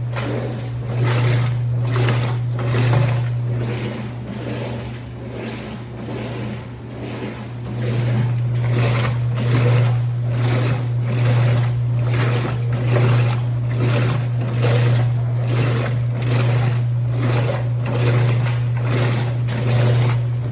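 Old Electrolux washing machine running: a steady low hum with a rhythmic swish repeating about twice a second.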